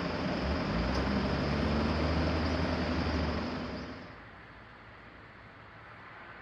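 Train passing a level crossing: a steady rumble with rail noise and a low hum, which drops away about four seconds in, leaving a quiet background.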